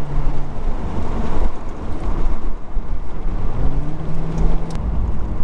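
C5 Corvette V8 under hard acceleration, with heavy road and wind rumble. Its engine note drops away about half a second in, then climbs again around three and a half seconds in and holds. The rear tyres grip without spinning.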